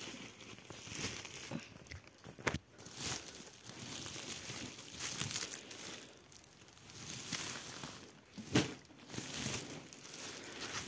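Black plastic bags and woven plastic sacks crinkling and rustling as they are handled and pulled at, in irregular bursts with a few sharp crackles.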